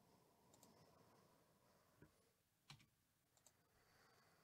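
Near silence with a few faint computer mouse clicks, the loudest a little over halfway through.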